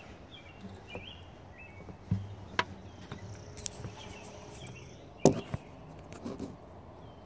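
Handling noise as a phone camera is moved and propped up: scattered clicks and knocks, the loudest a sharp knock about five seconds in, with birds chirping faintly in the background.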